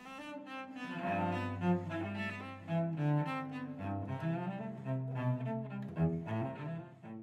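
Outro music: bowed string instruments playing a melody of changing notes.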